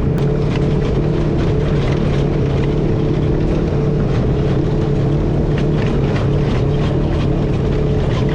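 Engine of an off-road tour side-by-side running steadily while under way, with frequent short rattles and knocks over its steady note.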